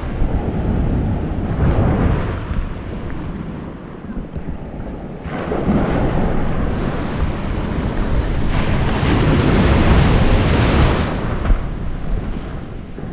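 Ocean surf breaking and washing in around the legs, swelling and ebbing in several surges, with wind rumbling on the microphone.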